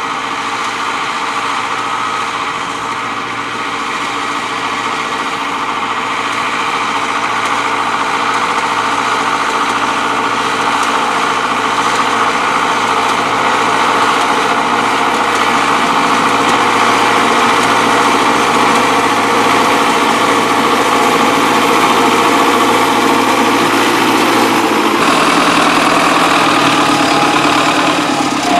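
Belarus MTZ-952 tractor's four-cylinder turbodiesel engine running steadily under load while pulling a potato planter, growing slowly louder as it approaches. About 25 seconds in the sound changes abruptly to a closer, fuller engine note.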